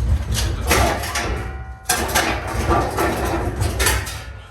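A heavy metal rolling tool box being pushed and manhandled, with its casters rumbling and the steel cabinet rattling and scraping in two long stretches, broken by a short pause a little before two seconds in.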